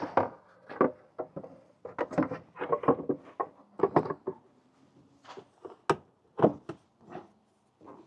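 Hard plastic clicks and knocks from a Jeep Grand Cherokee's rear tail-light housing being fitted and pressed back into its mounting clips, with two sharper snaps about six seconds in.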